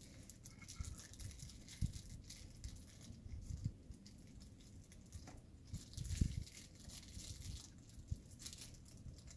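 Gloved hands handling the plastic tray and wrapped supplies of a catheter kit: irregular rustling and crinkling of packaging with light plastic clicks and taps, and a few louder knocks.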